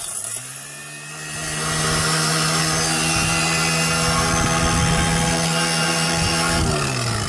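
Battery-powered rock pulverizer crushing quartz: the motor spins up with a rising whine, runs at a steady pitch under a grinding noise that builds over the first two seconds, then winds down with a falling whine near the end.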